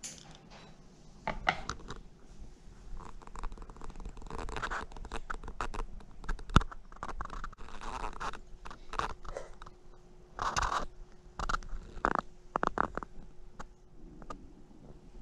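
Scattered clicks, light knocks, scrapes and rustles of dishes and handling at a dining table, with one sharp click about six and a half seconds in. A faint steady hum joins in about halfway through.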